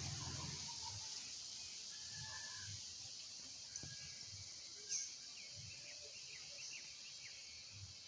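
Quiet outdoor ambience: a steady high hiss with faint, brief chirps of small birds, several in quick succession in the second half, and a short click about five seconds in.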